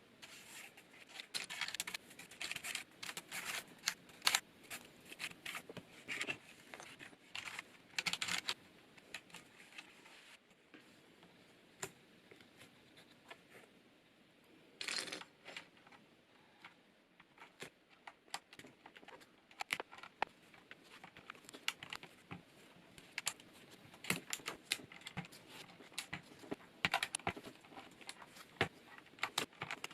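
A brush sweeping dust off a Corsair K70 keyboard with its keycaps removed: irregular scrubbing strokes with small clicks and rattles, pausing briefly about a third of the way through.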